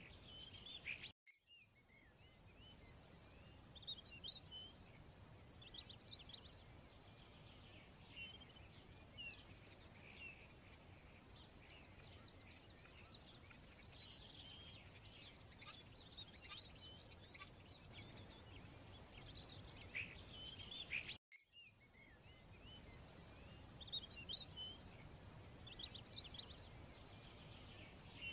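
Faint birdsong, short scattered chirps over a low steady hiss, with the sound cutting out abruptly for a moment about a second in and again about three-quarters of the way through.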